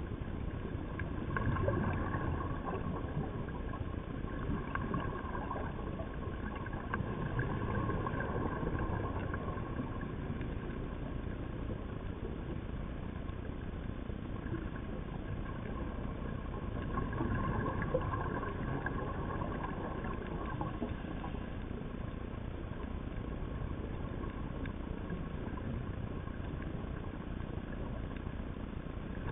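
Steady underwater rumble and hiss picked up by a dive camera in its housing, with a faint steady hum and a few louder swells.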